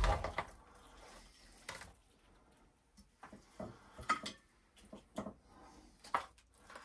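A serving utensil scraping and clinking against a baked pasta casserole in its dish as a portion is dug out: a few irregular knocks and scrapes, the loudest right at the start.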